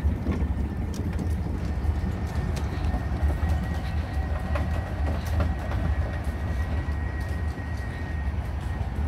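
Electric ride-on panda rolling along a paved path: a steady low rumble from the wheels on the paving stones, with light clicks and a faint steady high whine.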